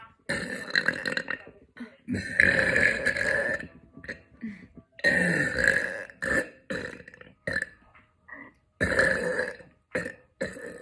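A woman burping loudly over and over: four long, drawn-out burps of about a second or more each, starting near the start, about two seconds in, about five seconds in and near nine seconds in, with short burps between them. The one about two seconds in is the loudest.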